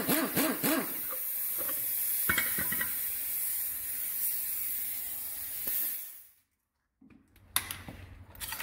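Pneumatic impact wrench hammering on the top nut of a coil-over shock absorber in a spring compressor, undoing it to free the top hat, for about the first second. Then a steady hiss of compressed air for several seconds that fades out about six seconds in, with a couple of sharp metal clicks near the end.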